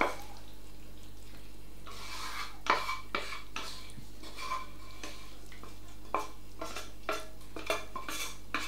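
A spoon scraping and knocking against a pan, scooping pie filling out into a pie dish: irregular scrapes and clinks starting about two seconds in.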